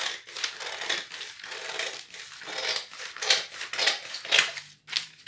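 Long fabric scissors cutting through folded layers of brown kraft pattern paper: repeated snips with paper rustling, stopping about five seconds in.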